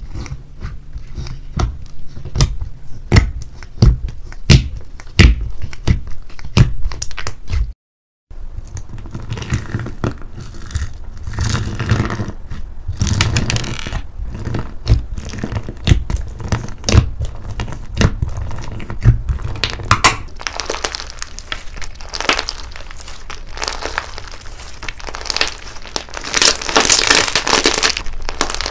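Hand-played slime: sharp clicks and pops as fingers press into slime packed with foam sponge pieces. After a short break comes denser crackling and squishing as thick white slime is squeezed and stretched, loudest near the end.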